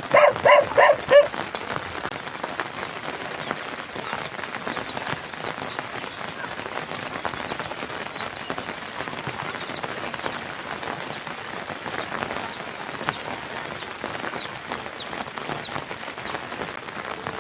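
Steady rain falling, a dense even patter. In the first second a dog barks several times in quick succession, and later faint high chirps repeat over the rain.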